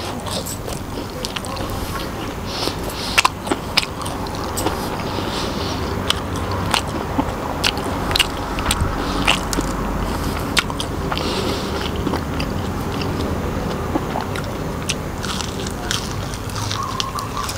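Close-up chewing and crunching of crispy batter-fried mushrooms, with many sharp, irregular crackles of the crisp batter between wet mouth sounds.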